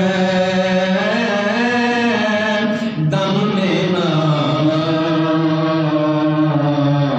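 A man's voice singing a naat (Urdu devotional poem) unaccompanied, into a microphone, in long held notes that bend slowly in pitch. There are two drawn-out phrases with a short breath about three seconds in.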